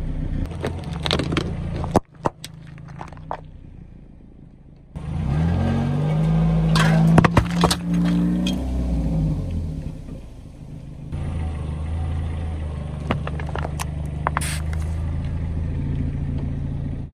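Car engine idling as the car creeps forward and its tyre rolls over and crushes plastic bottles and packages on asphalt, with sharp cracks and pops as they give way. The sound cuts abruptly between separate clips about two, five and eleven seconds in.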